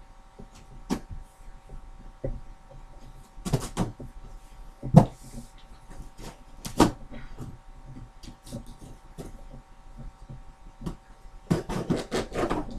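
A cardboard TV box being handled and cut open by hand: scattered knocks and scrapes on the cardboard, two sharper thumps in the middle, and a quick run of knocks and rustling near the end.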